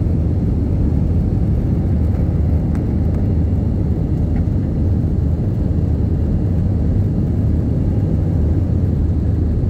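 Jet airliner cabin noise during the climb just after takeoff: a loud, steady, low rumble of the engines and airflow heard through the fuselage, with a faint tick about three seconds in.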